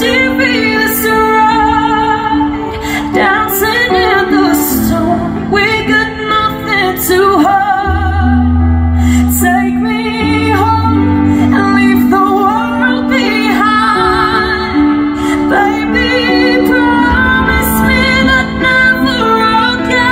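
A woman singing a slow ballad live over a backing track of sustained keyboard chords, her held notes wavering with vibrato. Deep bass notes come in about eight seconds in and again later.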